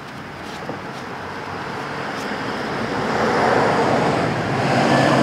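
Road traffic noise: a motor vehicle approaching, its rumble swelling steadily over about three seconds and then holding loud.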